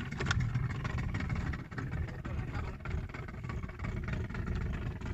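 A small fishing boat's engine running steadily.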